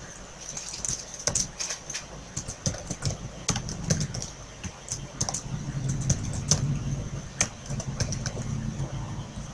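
Typing on a computer keyboard: irregular keystroke clicks as a line of code is entered.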